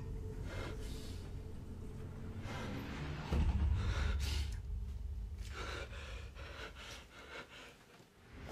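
Breathy gasps and heavy breaths from a horror film's soundtrack over a low rumbling drone. The drone swells about three seconds in and fades away near the end.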